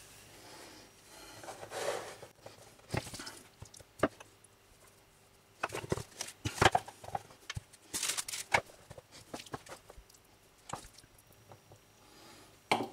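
Scattered clicks and knocks from handling a plastic dumpling press: it is opened and a dough circle laid in. A spoon then scrapes and taps as filling is scooped from a frying pan into the press.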